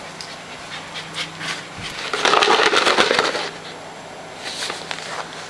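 Siberian husky puppy panting, with scattered light clicks and a louder burst of noise for about a second near the middle.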